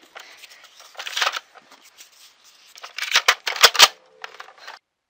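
Handling noises: rustling and a few sharp plastic-like clicks, loudest in a cluster between three and four seconds in, then the sound cuts off abruptly just before the end.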